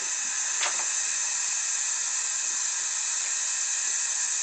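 Aerosol can in a BurglarBomb AB-2000 anti-burglary device discharging, set off by the door's trip line: a loud, steady hiss of spray from an inert demonstration can. There is a faint click about half a second in.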